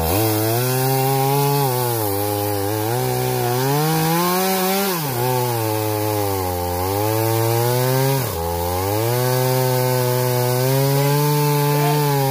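Two-stroke chainsaw at high revs cutting through wood, its engine pitch sagging and recovering several times as the chain bogs under load.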